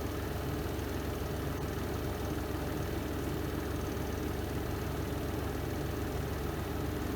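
Spin drum of a Renova semi-automatic twin-tub washing machine running steadily in its spin cycle, a constant low motor hum and drum rumble.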